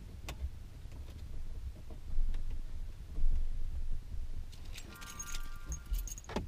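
Plastic clicks, knocks and rustling as an OBD2 adapter is plugged into a Ford F-150's under-dash diagnostic port. About five seconds in comes a short electronic tone lasting about a second.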